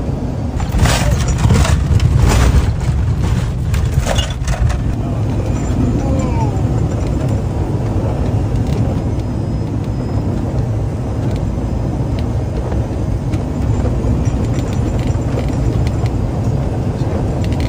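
Steady low rumble of cockpit noise in a small aircraft on final approach, airflow and engines together, with several sharp knocks or rattles in the first few seconds.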